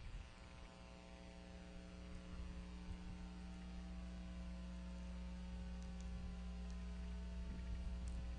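Steady electrical mains hum in a nest-cam audio feed, several even tones over a low rumble that grows slightly louder.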